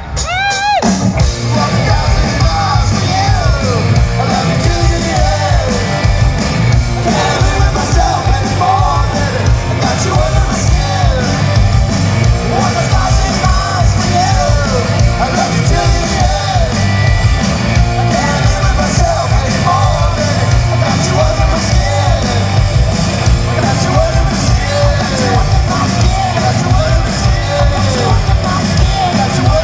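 Live rock band playing: electric guitars, bass guitar and drums, with a man singing and shouting the lead vocal. The band comes back in at full volume right at the start after a brief dip.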